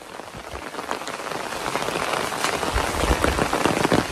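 Rain pattering on an umbrella held just overhead: a steady hiss of rain with sharp, irregular ticks of individual drops on the fabric, which come thicker in the last second or so.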